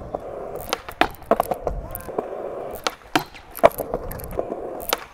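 Skateboard wheels rolling on concrete with a steady hum, broken by a dozen or so sharp wooden clacks of boards being popped and landed.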